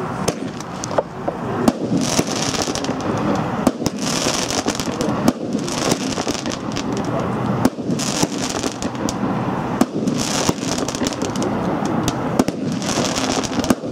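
Vulcan 'Total Maythem' fireworks battery firing shot after shot into the air, with sharp bangs and a crackling hiss from the bursts returning about every two seconds.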